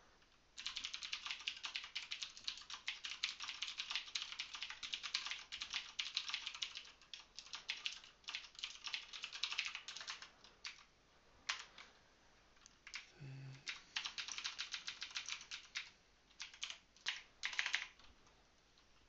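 Typing on a computer keyboard: fast runs of key clicks for about ten seconds, then a pause and shorter bursts of typing.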